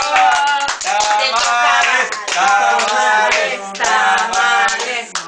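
A small group of people singing together with a few voices, clapping along.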